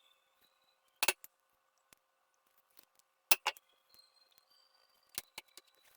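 A few sharp clicks and clinks of small wires and hardware being handled, the loudest about a second in and a double click about three and a half seconds in, over a faint steady hum.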